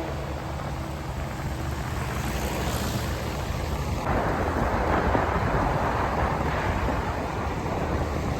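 Wind buffeting the microphone while riding a scooter, a steady low rumble mixed with road and engine noise, a little louder from about halfway through.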